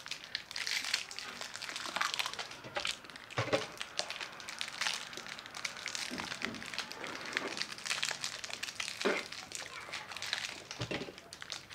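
Chocolate wrappers crinkling and crackling as two people tear them open and unwrap small chocolates by hand, with a few soft thumps among the crackles.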